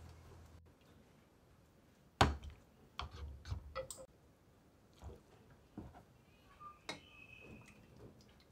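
Kitchenware handling: a sharp knock about two seconds in, then a run of lighter clicks and taps as bowls and utensils are handled while noodle bowls are filled with broth.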